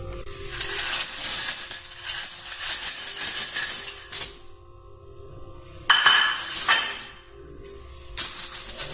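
Plastic keycaps from a Razer Cyclosa keyboard clattering as they are tipped out of a plastic bowl onto a towel and moved about by hand. A long rattle of many small clicks fills the first four seconds, a sharp burst comes about six seconds in, and more clatter follows near the end.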